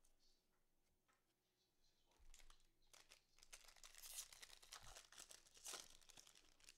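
Faint crinkling and tearing of a foil baseball-card pack wrapper being ripped open and handled, starting about two seconds in as a rapid run of small crackles.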